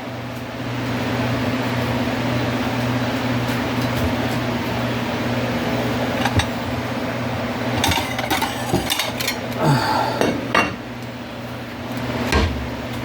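Vegetables sizzling in olive oil in a frying pan, with a run of clinks and scrapes of a utensil against the pan about eight to eleven seconds in. A steady low hum runs underneath.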